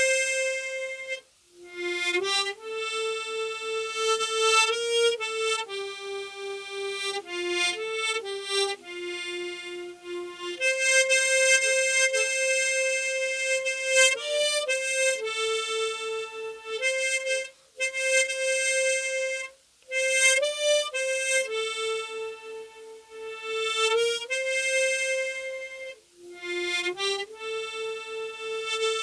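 Unaccompanied harmonica playing a slow melody, one held note at a time, with a few brief pauses for breath.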